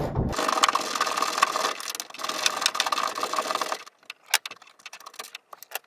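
A small motor runs steadily for about three and a half seconds and stops abruptly, followed by a few sharp clicks and taps of handled metal parts.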